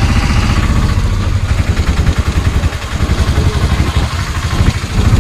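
Auto-rickshaw engine running while the vehicle drives, heard from inside the cabin: a loud, rapid putter that eases off briefly twice, a little before three seconds in and again between about four and five seconds.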